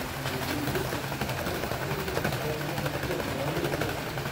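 HO-gauge brass model train of old-style passenger coaches running past on metal track: a steady metallic rolling noise with quick, regular ticks of the wheels over rail joints.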